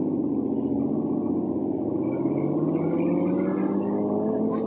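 An aircraft passing, heard as a steady low engine hum made of several tones, one of them slowly rising in pitch.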